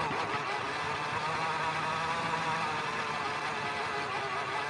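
Traxxas TRX-4M Defender RC crawler driving along a dirt trail: its small electric motor and geartrain give a steady whine.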